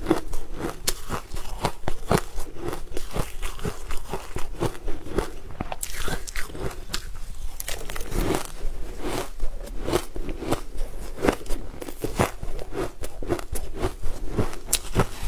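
Close-miked crunching of frozen, icy food being bitten and chewed: rapid, irregular crisp crunches with no pause.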